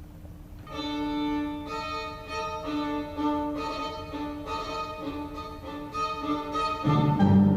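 Music: one melody instrument, violin-like, plays slow sustained notes, starting about a second in. A louder, lower note joins near the end.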